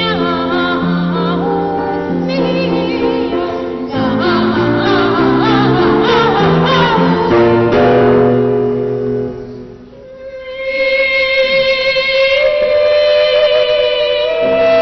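Boys' voices singing with piano accompaniment. About ten seconds in the music briefly drops away, then a single long high note is held and steps up slightly near the end.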